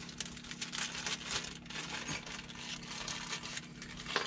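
A small plastic bag of metal pinch hose clamps being handled and opened: irregular crinkling of plastic with light metallic clinks, and a sharper clink near the end.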